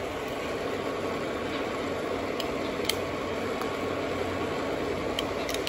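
Small electric motor of a Carrera slot car pickup truck running steadily while it strains to pull a heavy train load, with a few light clicks.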